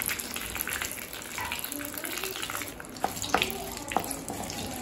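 A tadka of curry leaves, a dried red chilli, mustard seeds, cumin and urad dal sizzling and crackling in hot oil in a kadai. Near the end a wooden spatula stirs it, with a few sharp clicks.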